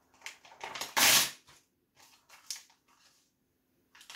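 Printed paper photo being bitten, torn and chewed: crinkling and tearing paper with short crackles, the loudest rustle about a second in, then fainter crackles of chewing.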